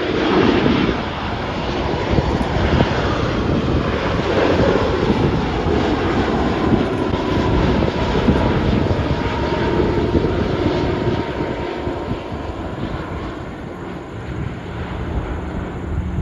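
Boeing 787 airliner's jet engines roaring as it comes in to land, a broad rushing roar with a faint steady whine, easing off a little near the end.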